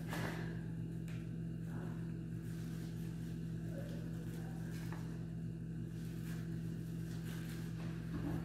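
A steady low machine hum, with a few faint knocks and scrapes of a large knife cutting goat meat on a metal tray.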